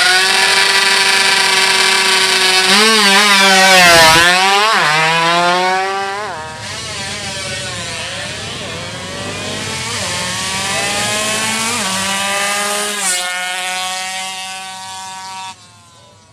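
A 116cc racing underbone motorcycle engine revving hard at high rpm, its pitch dipping and jumping repeatedly with gear changes a few seconds in. It then runs on quieter with the revs climbing steadily and cuts off suddenly near the end.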